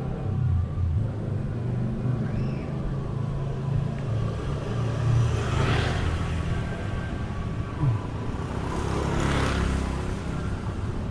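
Street traffic: a steady low engine rumble, with vehicles passing close about six seconds in and again about nine seconds in.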